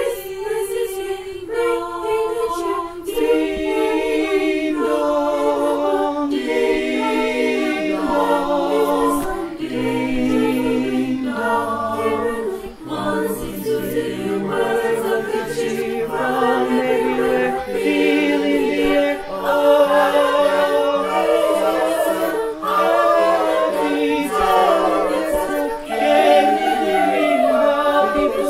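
High-school choir singing a cappella in several voice parts, as a virtual choir of separately recorded voices mixed together, with notes held and moving between chords.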